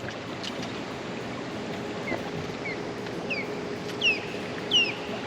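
A bird calling in a series of short, falling chirps, louder near the end, over steady open-water ambience with a faint steady hum.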